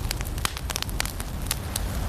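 Firewood burning in a fireplace: crackling with sharp pops about four times a second over a low steady rumble.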